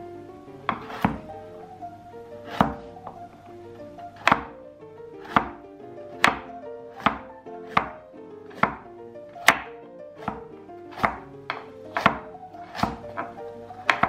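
Chef's knife slicing a peeled carrot into rounds, the blade knocking on a wooden cutting board about twenty times at an unhurried, uneven pace, with background music.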